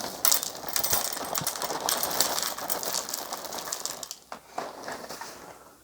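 Sour Patch Kids cereal pieces poured into a bowl: a dense patter of many small pieces hitting that thins out after about four seconds, with a few single clicks near the end.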